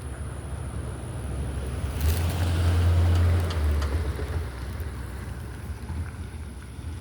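A vehicle driving past: a low rumble and tyre noise that build to their loudest about three seconds in, then fade away. Wind buffets the microphone throughout.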